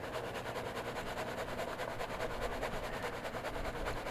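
Water and shredded connector debris sloshing in a gold pan, shaken in a fast, even rhythm to stratify the heavy gold-plated pins below the lighter plastic and rubber.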